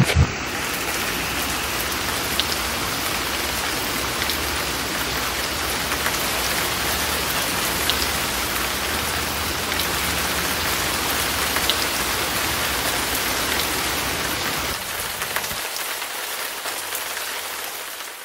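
Steady rain: a dense, even hiss with scattered sharper drips and a low rumble underneath. The rumble drops away near the end and the rain fades out.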